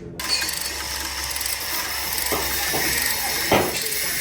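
A workshop tool starts up abruptly with a steady high hiss, with a few sharp knocks over it, the loudest about three and a half seconds in.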